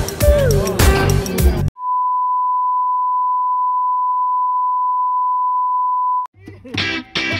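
Background music stops abruptly, and a steady single-pitched electronic beep, like a test tone or censor bleep, sounds for about four and a half seconds. It cuts off sharply, and guitar-led music starts again near the end.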